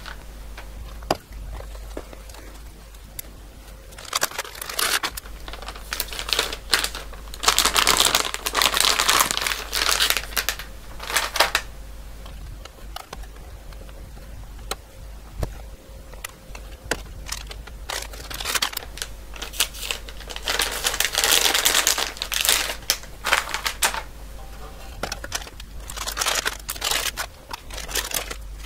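Crinkling of a plastic anti-static shielding bag as circuit boards are slipped into it, in two long spells, with scattered clicks from the boards being handled and pulled from a card cage.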